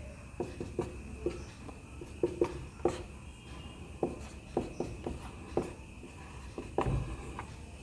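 Marker pen on a whiteboard: short, irregular taps and strokes, a few each second, as letters and bond lines are drawn.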